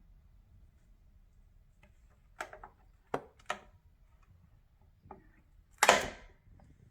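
Scattered mechanical clicks from a 1965 Hermes 3000 typewriter being handled: three sharp clicks about two and a half to three and a half seconds in, a softer one about five seconds in, then one loud clack with a brief rattle about six seconds in.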